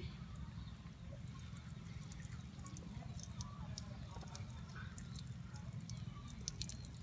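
Frogs calling after rain: a steady low drone of many voices underneath, with many short, irregular clicks and ticks above it.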